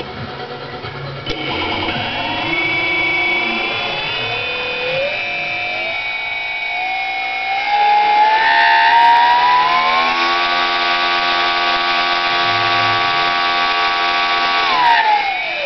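A small hydraulic gear pump driven by a brushless outrunner electric motor, running with a high whine. The speed is raised in stages over the first ten seconds, holds steady for several seconds, then winds down quickly near the end.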